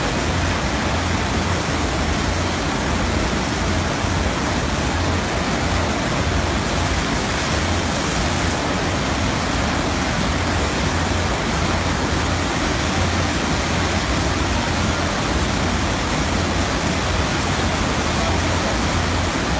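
Steady rush of water streaming over the surface of an artificial surf wave ride, an even hiss with a low rumble underneath.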